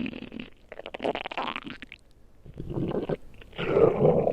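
A person's stomach growling: gurgling rumbles that come in three bursts with short pauses between them, the loudest just before the end.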